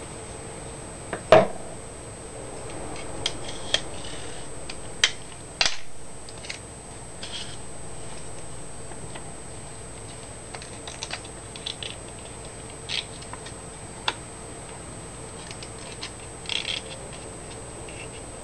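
Small paper being handled and rolled into a blowgun dart: scattered soft paper rustles and crinkles with a few sharp clicks and taps, the loudest about a second and a half in. A faint steady high whine sits underneath.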